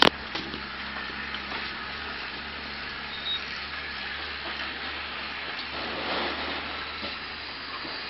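Steady hiss of outdoor background noise with a faint low hum, and one sharp knock right at the start.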